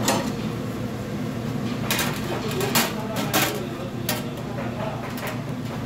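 Metal pot lid clanking and clattering as it is lifted off a stockpot with metal tongs: several sharp clacks, two louder than the rest, over the steady drone of kitchen ventilation.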